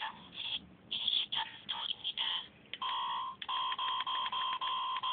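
Circuit-bent talking alarm clock glitching through its small speaker: short, broken bursts of electronic tones at first, then from about three seconds in a steady buzzy tone chopped by rapid clicks.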